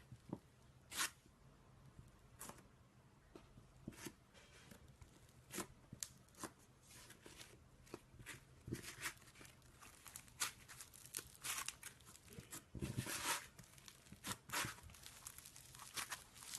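Homemade slime being squished and stretched by hand, giving irregular sticky crackles and small pops that come thicker in the second half.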